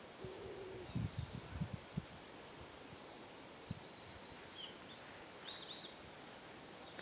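Small birds chirping faintly in a quiet outdoor background, with a few dull low knocks in the first two seconds.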